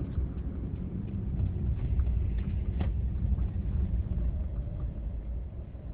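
Car driving on the open road, heard from inside the cabin: a steady low rumble of road and engine noise, with a few faint clicks and rattles, one sharper just under three seconds in.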